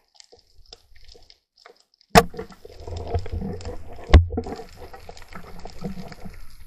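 Underwater sound from a speargun: two sharp clacks about two seconds apart, the first about two seconds in, as it is fired and its rubber bands handled. Sloshing and bubbling water fills the time after the first clack.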